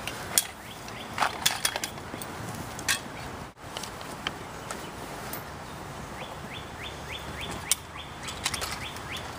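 Scattered clicks and knocks of field gear being handled and packs set down, with a bird calling in a quick series of repeated chirps in the second half.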